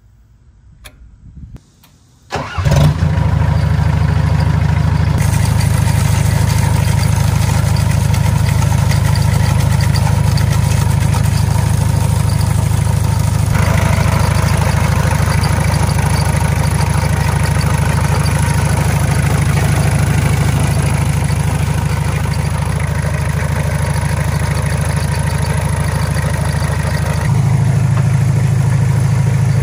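Komatsu D21A mini dozer's diesel engine starting about two and a half seconds in, catching at once and then running steadily, its note changing around the middle and again near the end.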